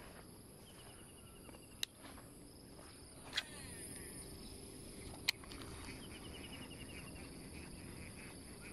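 Steady high-pitched drone of insects, with three sharp clicks spread about a second and a half apart.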